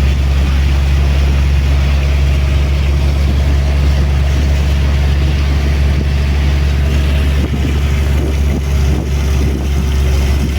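A river boat's engine running steadily under way: a deep, unbroken drone, dipping slightly now and then near the end.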